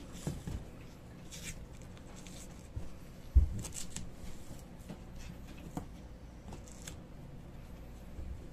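Masking tape being pulled off the roll in several short rasps and pressed on by cloth-gloved hands handling a plastic figure. A single dull thump about three and a half seconds in is the loudest sound.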